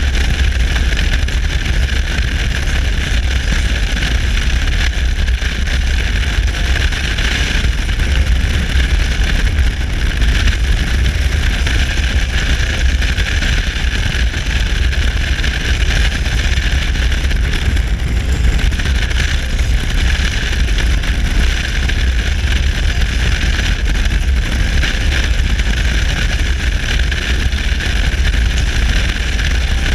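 Touring motorcycle cruising at highway speed: a steady rush of wind and road noise with the engine's drone, and heavy wind buffeting on the microphone.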